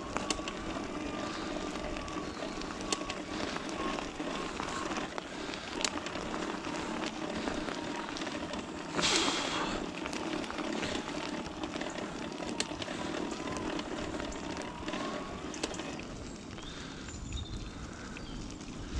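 Kettler e-bike ridden along a forest track: tyres crackling over the ground, with the faint wavering whine of the mid-drive motor, which the rider finds dry-sounding and in need of greasing. About halfway through there is a brief rush of noise.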